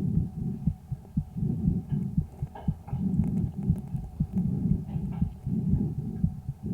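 A sick calf's chest sounds through a homemade stethoscope microphone, on the second day of illness: breath sounds swell and fade about every second and a half, with heartbeat thumps running through them.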